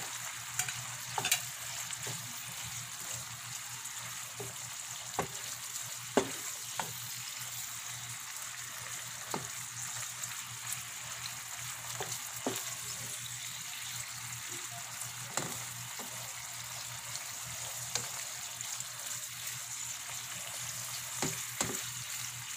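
Coconut milk simmering in a nonstick pan with a steady sizzling hiss, while a wooden spatula stirs through tuna and moringa leaves, knocking and scraping against the pan now and then.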